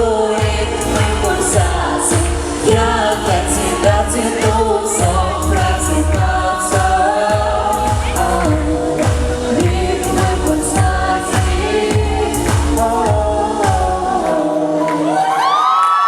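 Pop song with singing over a steady bass beat. Near the end the beat stops, and a final note slides up and is held.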